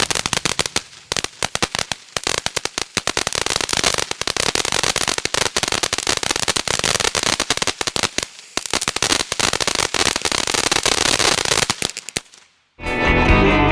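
Fountain firework crackling in a dense, rapid stream of pops, with two brief lulls. It cuts off suddenly near the end, and after a moment of silence rock-style music with guitar starts.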